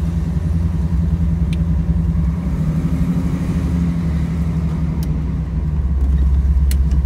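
1978 Chevy C10 pickup's engine running steadily while the truck is driven, heard from inside the cab, getting a little louder near the end. A few faint clicks sound over it.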